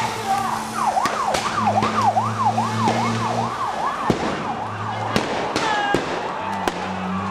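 Police vehicle siren on a fast yelp, rising and falling about three times a second, with a low steady drone under it that drops out and comes back. Several sharp bangs cut through at intervals.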